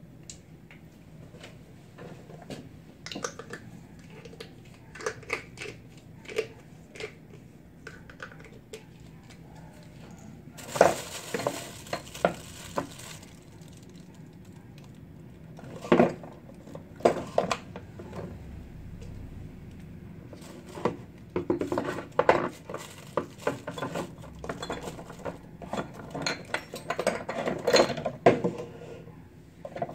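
Dishes, cups and utensils clinking and knocking as they are handled on a kitchen counter, in scattered short clatters. About eleven seconds in there is a couple of seconds of hissing noise.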